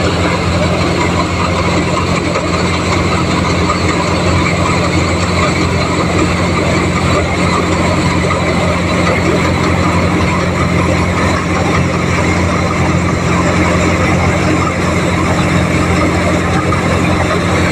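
Tractor-driven NVT thresher running steadily while threshing jowar (sorghum), a dense even machine noise over the steady low hum of the John Deere 5050D's diesel engine driving it.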